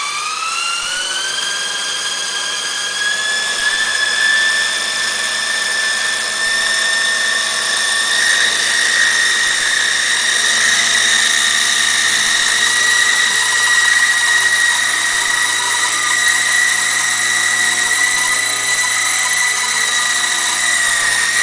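Small electric motor of a toy remote-control helicopter spinning up with a quickly rising high whine, then running at a steady high-pitched whine.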